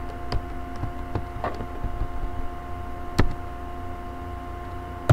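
Scattered computer keyboard keystrokes: a few single taps at irregular intervals, the loudest about three seconds in, over a steady electrical hum.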